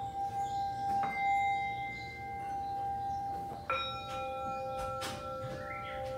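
Background meditation music of long, ringing bell-like tones. A new tone is struck about a second in, and another set of tones near the middle, each ringing on.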